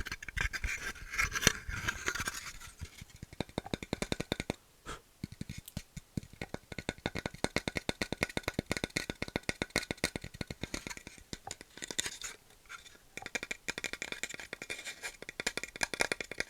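Fast, light tapping and scratching on wood: a dense run of small clicks, several a second, with brief lulls about five seconds in and again near twelve seconds.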